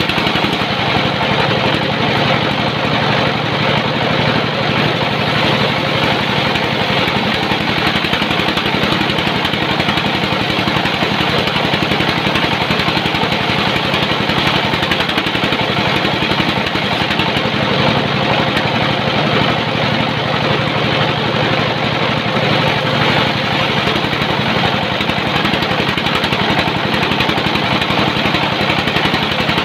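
Sawmill machinery running steadily: a continuous mechanical drone with no pauses or breaks.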